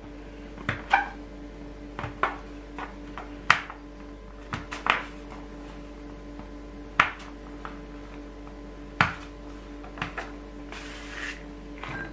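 Plastic dough scraper chopping sugared beans on a wooden board: about a dozen sharp, irregular taps as the blade hits the wood, over a steady low hum. Near the end comes a short scrape as the pieces are pushed together.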